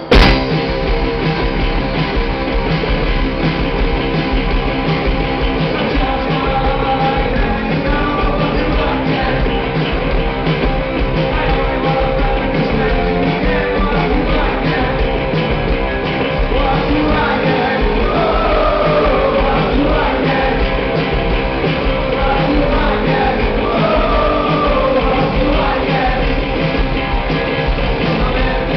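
Live rock band playing loud with electric guitars, bass and drums, the song kicking in with a sudden loud hit right at the start; a man sings over it. Heard from within the crowd.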